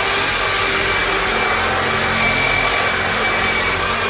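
Electric rotary polisher with a buffing pad running at a steady speed, buffing dried silver wax on a Venetian plaster panel; a steady motor noise with a faint whine.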